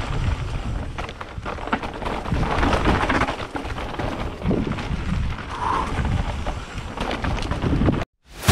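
Mountain bike riding down a rough trail, recorded on an action camera: a dense low rumble and buffeting with many knocks and rattles as the tyres and frame go over rocks and roots. It cuts off suddenly near the end.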